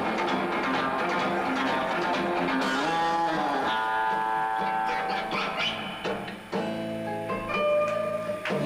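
Background music led by guitar, with held and changing notes.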